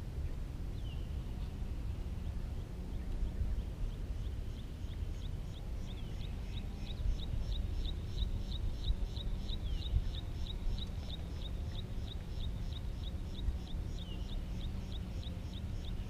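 Rapid, high chirping of a small bird, about four chirps a second, starting about four seconds in, with a few single downward-sliding notes, over a steady low rumble.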